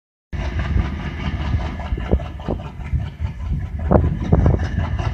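Indian Railways WDG-3A Alco diesel locomotive chugging as it pulls a train away from a halt, its 16-cylinder ALCO 251 engine under load giving a steady deep rumble. A few louder thumps come through about two and four seconds in.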